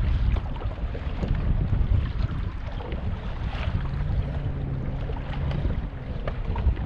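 Wind buffeting the microphone and choppy water lapping around the boat, with a low steady hum for about two seconds midway.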